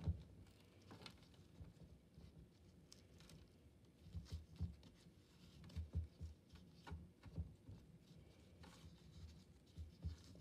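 Faint, irregular soft thumps and scratchy patter of potting soil being added to a pot and pressed down by hand around plant cuttings.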